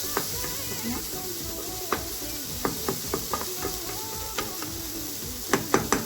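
Food sizzling as it fries in a pan while it is stirred, with the utensil clicking and scraping against the pan several times, most around the middle and near the end.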